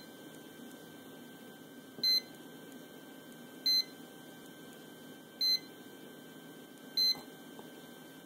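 Key-press beeps from a LUX TX9600TS touchscreen thermostat: a short, high electronic beep every one and a half to two seconds. Each beep confirms a tap on the screen that scrolls to the next menu setting.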